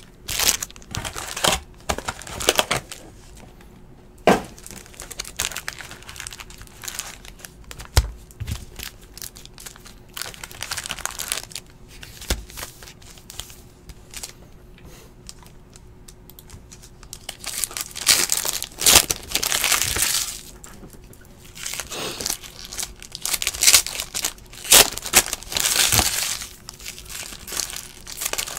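Foil trading-card pack wrappers crinkling and tearing open by hand, with irregular crackles and rustles as packs and cards are handled. The crinkling grows busier and louder about two-thirds of the way through.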